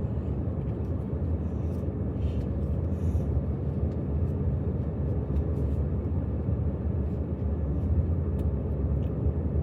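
Steady low rumble of a moving car's cabin, with a few faint taps and rustles.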